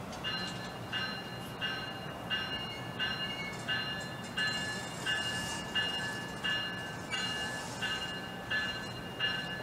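A train's bell ringing steadily, about three strikes every two seconds, each ring fading before the next, over the low steady hum of the commuter train standing at the platform.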